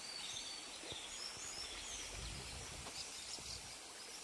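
Steady rush of a muddy river in flood, running fast after heavy rain. Small birds chirp briefly and repeatedly over it.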